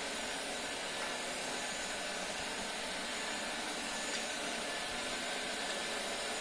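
Vestel V-Bot robot vacuum cleaner running with a steady, even whirring hiss.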